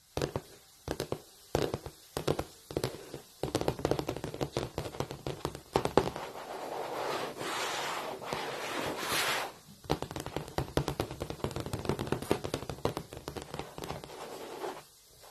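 Long fingernails tapping and scratching on a blackboard. It starts with separate taps spaced about half a second apart, which turn into a dense run of taps. From about six to nine and a half seconds in comes a long continuous scratch, and after a short pause there is more rapid tapping and scratching.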